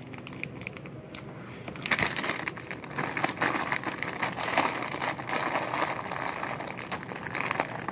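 Foil snack bag of Takis chips crinkling and crackling as it is handled in the hands, starting about two seconds in.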